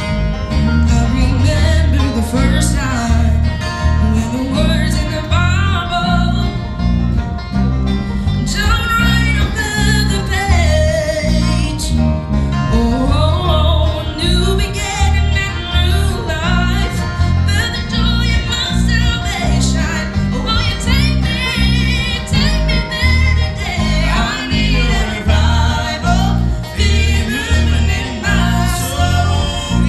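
A family gospel group singing with guitar accompaniment over a steady, rhythmic bass line.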